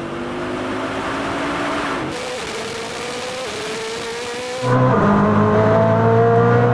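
High-performance car engines running under hard acceleration, their note rising slowly in pitch. The sound changes abruptly about two seconds in, then jumps louder near two-thirds of the way through.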